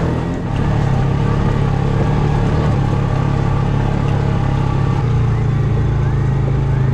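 Polaris RZR side-by-side engine running under load, heard from the cab while climbing a rocky trail. Its note shifts about five seconds in.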